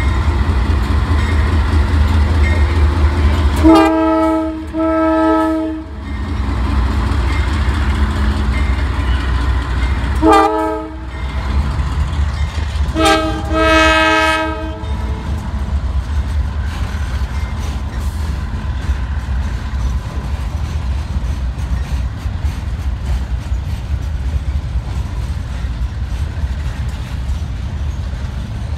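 Norfolk Southern diesel locomotive sounding its multi-chime air horn for a grade crossing: two long blasts, a short one, then a final long one, over the locomotive's low rumble. Afterwards the steady rumble of the train's RoadRailer trailers rolling past.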